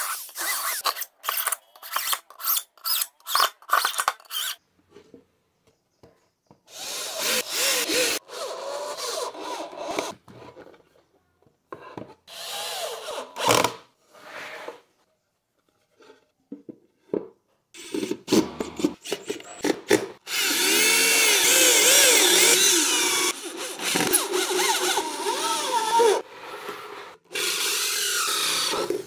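Corded electric drill in short bursts, driving screws into melamine board. Later it runs longer, boring into the side of a melamine box, its pitch wavering under load.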